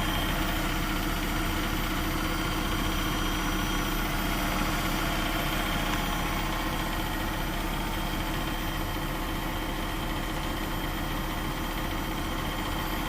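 2015 Jeep Grand Cherokee engine idling steadily, a constant hum with a few held tones.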